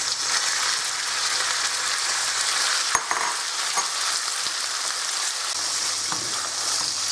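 Bite-sized raw chicken breast pieces sizzling steadily in hot oil in a wok, stirred with a spatula. One sharp click about three seconds in.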